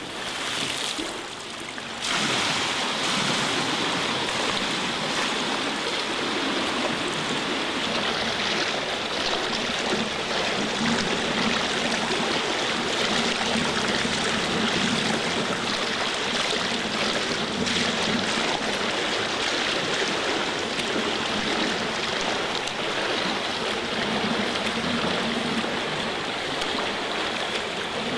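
Swimmer's front-crawl splashing in an indoor pool. It is quieter for about the first two seconds, during the underwater glide after the dive, then becomes a steady rush of splashing water.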